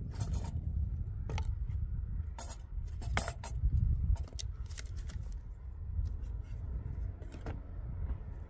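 Irregular sharp clicks, knocks and scrapes, as of hard objects being handled, over a steady low rumble. The loudest is a quick cluster of knocks about three seconds in.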